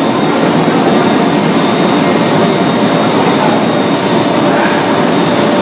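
BOPP film lamination machine running: a steady, loud mechanical rush with a constant high whine.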